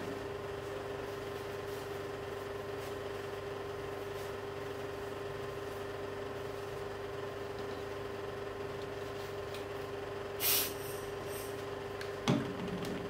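Steady electrical hum with a constant tone. About ten seconds in there is a short hiss, and near the end a single hard knock as a lens part is set down on the work surface.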